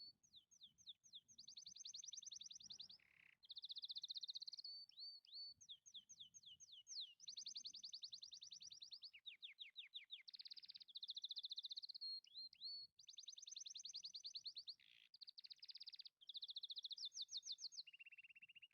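A small songbird singing a long, varied, faint song: fast trills and rapid runs of repeated high notes, phrase after phrase with short gaps, ending on a lower trill.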